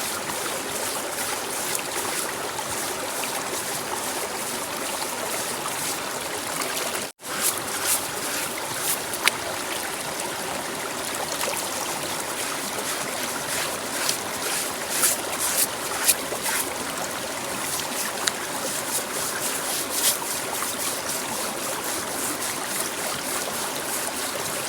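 Water running and trickling steadily, with scattered short scrapes and clicks after a momentary cut about seven seconds in.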